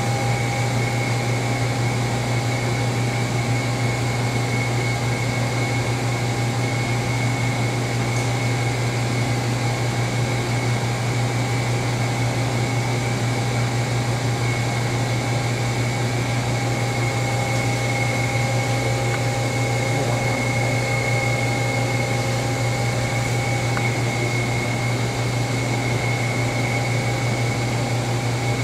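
Doosan Lynx 220LM CNC turning center running a program, a steady machine hum with two thin, steady high whines above it.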